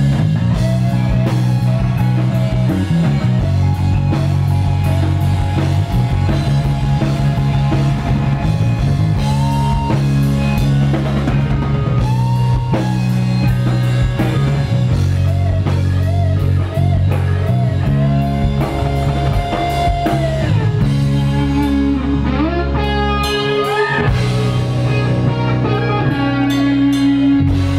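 Live rock band playing an instrumental passage: an electric guitar leads with bent, sustained notes over bass guitar and a drum kit, played loud through Marshall amplifiers.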